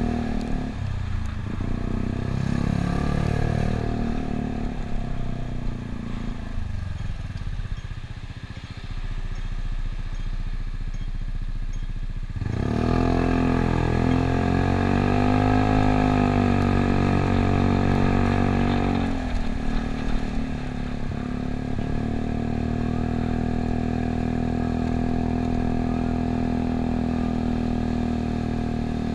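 Yamaha Cygnus 125 cc single-cylinder scooter engine under way. It drops to a low idle about a quarter of the way in, revs up sharply to pull away about halfway through, then eases back and runs steadily at cruising speed.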